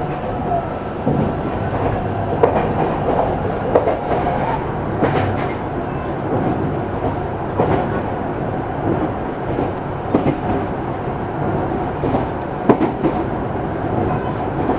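Meitetsu 300 series electric train set 317F running along the line: a steady rumble of wheels on rail, with irregular sharp clacks as the wheels pass over rail joints.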